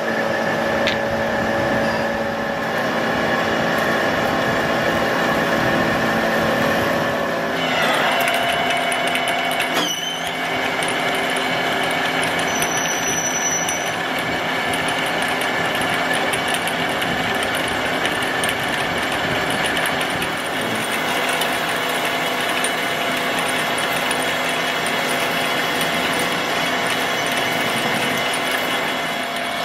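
Metal-turning lathe running steadily as its tool cuts a spinning workpiece under flowing coolant: a continuous mechanical whir with several steady whining tones. The sound shifts about eight seconds in, and there is one sharp click about ten seconds in.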